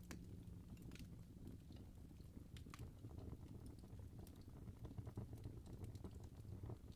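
Wood fire crackling in a fireplace: faint, irregular pops and snaps over a low, steady rumble of the flames.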